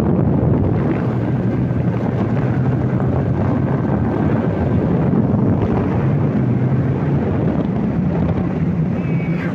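Wind buffeting the microphone over the steady hum of a vehicle's engine driving along at a constant speed.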